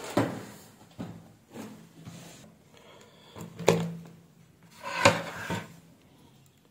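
Hard plastic and circuit-board parts being handled and set down on a workbench: a series of sharp knocks and clacks, the loudest about three and a half and five seconds in.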